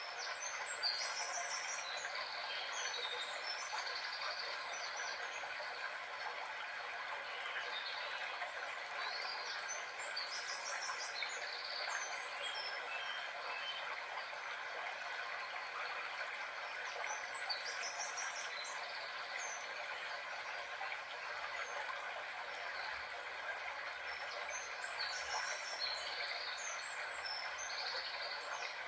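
Nature soundscape recording: birds chirping in short bursts every several seconds over a steady rush of running water.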